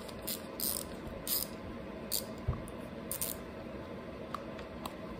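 A few light clicks and scrapes of small metal parts being handled as the fuel bowl nut and float bowl come off a Tecumseh carburetor. They are mostly in the first three seconds, then it goes quiet.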